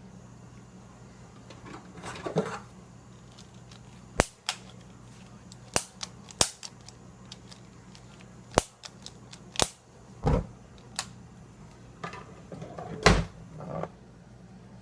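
Cooking oatmeal bursting: sharp pops at uneven gaps, about nine in all, with a few softer sputters between them, over a steady low hum.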